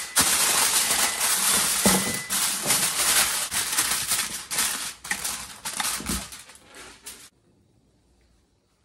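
Aluminium foil crinkling and crackling as it is pressed down and crimped around the edges of a baking dish, stopping about seven seconds in.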